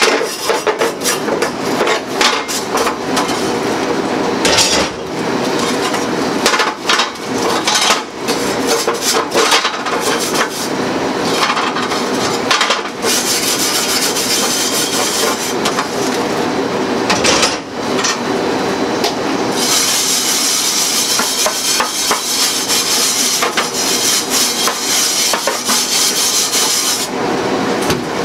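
Metal broiler grates being knocked, clattered and scrubbed with a stiff brush. Rapid knocks and scrapes fill the first half. From about halfway, long stretches of steady scrubbing dominate, broken by a few more knocks.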